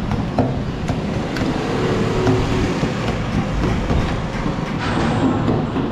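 Long metal ladle scraping and clinking against a steel pot, giving short sharp clicks, over a steady background rumble.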